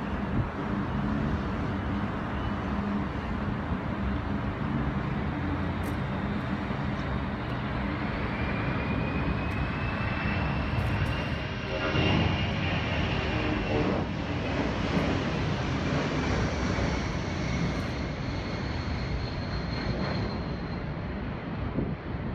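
Low-flying military aircraft passing close overhead, its engines a continuous roar that swells to a peak about halfway through and then eases. A high whine rises in pitch as it approaches and falls away after it passes.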